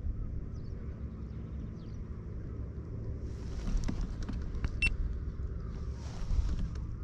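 Low rumble of wind on the microphone, swelling twice, with a few faint clicks and one short high beep about five seconds in.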